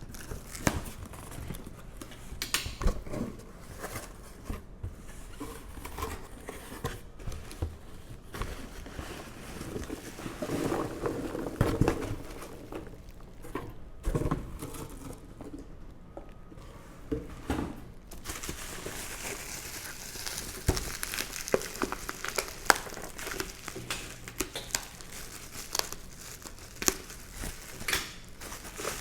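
Packaging being opened by hand: plastic and paper wrapping crinkling and rustling, with some tearing and small knocks. The crinkling gets denser and brighter after about eighteen seconds.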